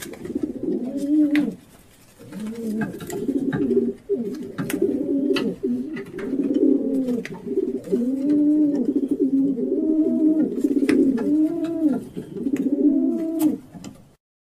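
Several pigeons cooing in overlapping, repeated rolling coos, with scattered sharp clicks among them. The sound stops abruptly near the end.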